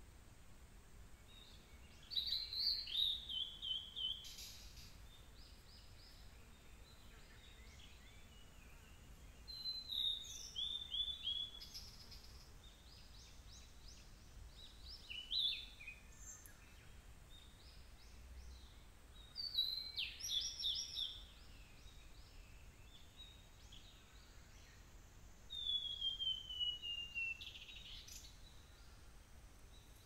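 Male blue-and-white flycatcher singing: five song phrases a few seconds apart, each mostly a clear falling whistle followed by a quick run of short notes. The last phrase has the longest slide downward.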